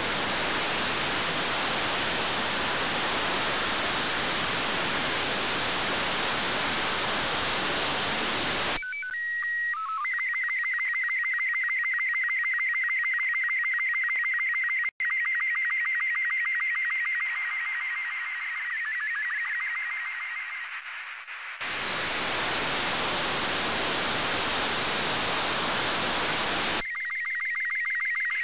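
Slow-scan television (SSTV) signal relayed by the LAPAN-A2 (IO-86) satellite, heard through an FM receiver. It opens with loud receiver static; about nine seconds in, a few held start-up tones give way to the warbling scan-line tones with an even, rapid tick of sync pulses. Near twenty-two seconds the tones drop back into static for about five seconds as the downlink fades, and they return near the end.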